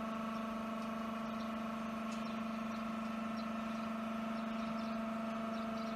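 A machine running steadily with a constant, even hum that does not change in pitch or level.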